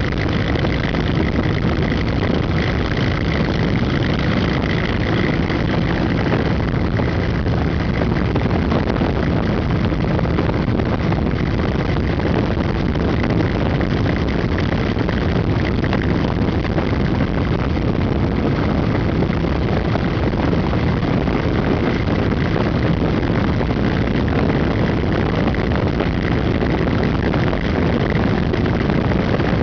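Motorcycle riding steadily at road speed: engine running under a loud, even rush of wind and road noise.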